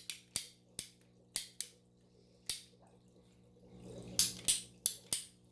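Ratcheting pipe cutter being squeezed shut on a pipe, its ratchet clicking sharply and unevenly, with a pause in the middle before a quicker run of clicks near the end.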